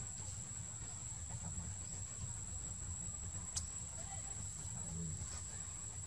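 Outdoor tree-canopy ambience: a steady high-pitched insect drone over a low rumble, with a single sharp click a little past halfway.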